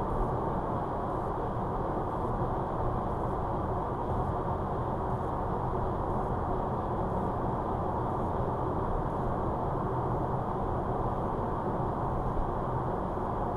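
Steady road and tyre noise with engine hum from a car cruising at motorway speed, heard from inside the cabin.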